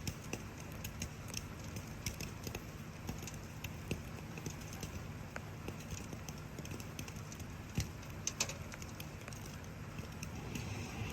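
Wood campfire crackling, with irregular sharp pops and snaps, the loudest a few about eight seconds in, over a steady hiss of falling rain.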